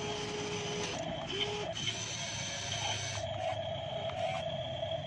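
Electric motors of a Huina RC model excavator whirring in several short start-stop runs as the boom and arm move. Each run rises quickly in pitch and then holds, with a higher steady whine through the second half.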